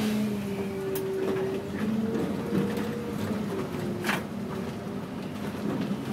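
City bus driving, heard from inside: the engine and drivetrain hum, shifting in pitch as the bus speeds up and slows, with rattles and clicks from the cabin, a sharper click about four seconds in.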